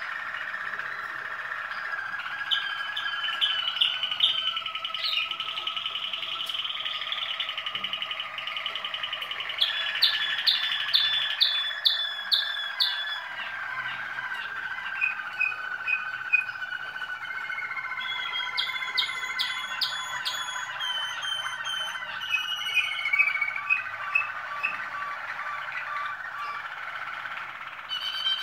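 Malinois Waterslager song canaries singing: a long, unbroken song of trills and rolling tours, with runs of sharp repeated notes about a third of the way in and again past the middle.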